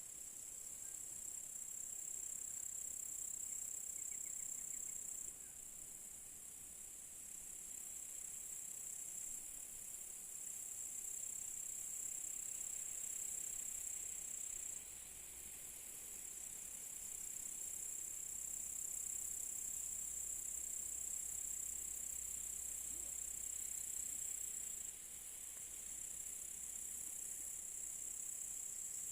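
A steady, high-pitched chorus of crickets trilling without a break, its loudness stepping down suddenly three times.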